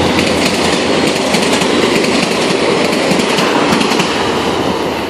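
VIA Rail passenger train's coaches passing at speed, wheels clattering over the rails in a loud, steady rush.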